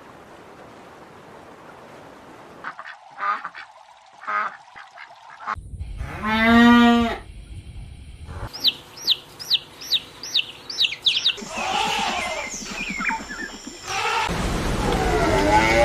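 Animal calls one after another: a long loud pitched call about six seconds in, then a quick run of about seven short high calls, then further calls and another loud pitched call near the end.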